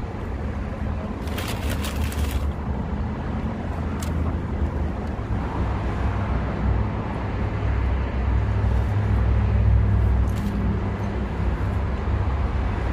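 Low, steady rumble of road traffic that swells for a few seconds past the middle. Crinkling of a foil wrap and a paper bag about a second in.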